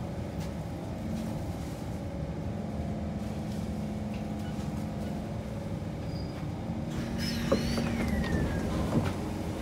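Kawasaki C151 electric multiple unit on the move, heard from on board: a steady running rumble with a low hum. Near the end come a couple of sharp clicks and a brief high squeal that falls in pitch.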